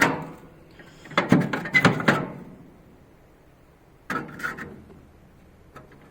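Rusted metal parts inside a gas grill being handled and moved, clanking and scraping in several short bursts with pauses between.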